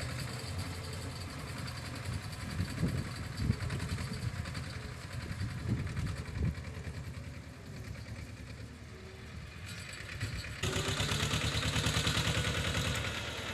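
Heavy diesel engine running with a steady, even beat, with a few sharp knocks in the first half. About ten and a half seconds in it suddenly gets louder and harsher.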